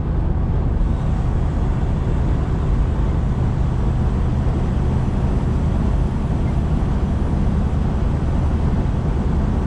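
Steady low drone of a tractor-trailer's diesel engine and road noise while the truck drives along.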